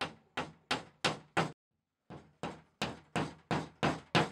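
Claw hammer tapping plastic wall anchors into drilled holes in a wall: evenly spaced taps about three a second, each run growing louder. The taps stop briefly about halfway, then start again on the next anchor.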